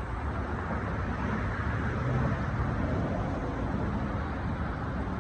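Steady outdoor rumble of road traffic, with a faint low engine hum about two seconds in.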